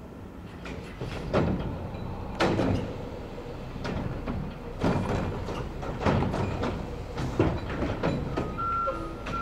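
Mack LE front-loader garbage truck's engine running low as the truck rolls slowly, with several sharp clanks and knocks about a second apart. A reversing beeper starts near the end.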